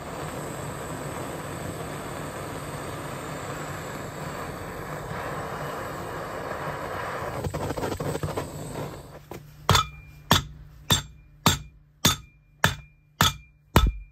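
A gas torch hisses steadily for about nine seconds while it heats the alternator's bearing seat. Then come eight evenly spaced hammer blows, a little under a second apart, each with a short metallic ring. They are struck through a lead block onto the rotor shaft to drive the rotor out of its badly fouled bearing, and the soft lead keeps the shaft thread from being damaged.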